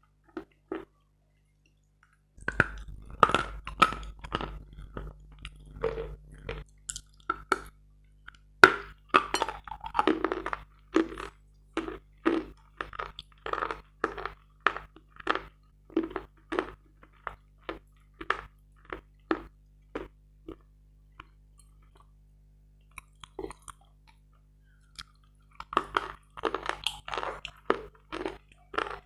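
Close-miked crunching and chewing of a dry, dense, grainy edible chalk: rapid sharp crunches as pieces are bitten and chewed. There is a pause of a few seconds near the end, then the crunching starts again.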